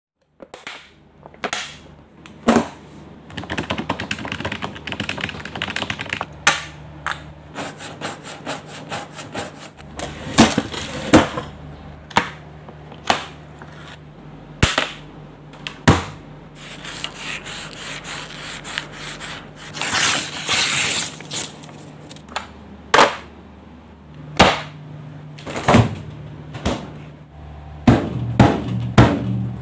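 A string of short, varied sound effects: many sharp clicks and knocks, a few longer noisy swishes, over a steady low hum.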